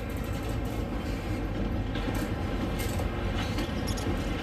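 HO scale model train running along the layout track: a steady rumble with a few sharp clicks from the wheels over the rails.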